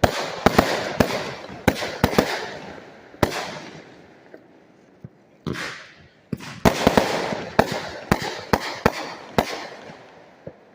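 Consumer fireworks going off in rapid, irregular bangs, each followed by crackling. The bangs come in two volleys with a quieter pause of a couple of seconds between them.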